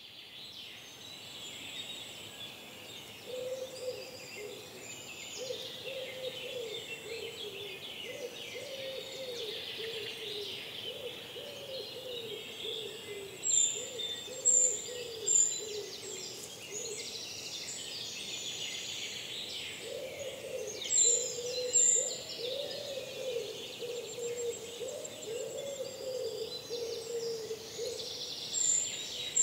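Woodland dawn chorus: many songbirds singing at once, with a bird repeating a low, wavering call over and over for long stretches. Several short, sharp, very high calls close by stand out a few times, around the middle and at the end.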